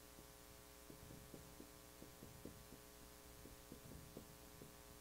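Faint, irregular strokes and taps of a dry-erase marker writing on a whiteboard, over a steady electrical hum.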